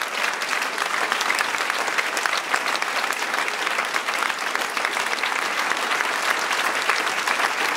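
Crowd applauding: many hands clapping steadily and densely throughout.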